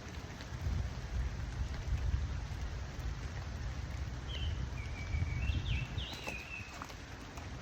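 Steady rain falling, over a low rumble, with a bird giving a few short high chirps in the second half.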